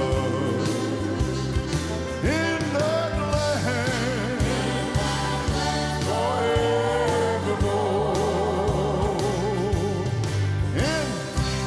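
Gospel hymn sung live by a man and women in harmony over instrumental accompaniment, the voices holding long notes with vibrato over a steady beat.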